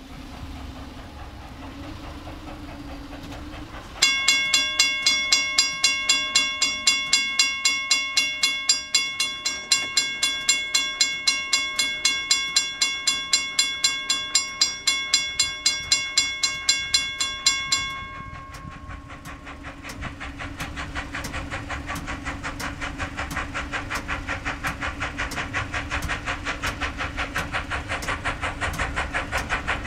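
A bell rings rapidly, about four strikes a second, for some fourteen seconds and then stops. After it, the rhythmic exhaust chuffs of an approaching steam locomotive grow steadily louder.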